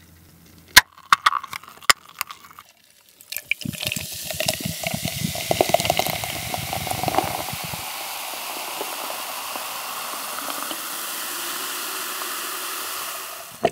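A Coca-Cola can's pull tab cracks open with a sharp pop about a second in. Then the cola is poured in a stream into a glass jar, gurgling at first and settling into a steady fizzing hiss as the foam rises, which stops just before the end.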